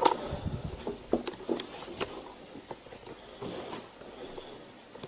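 Movement and handling noise: rustling with scattered small clicks and knocks, the sharpest one right at the start.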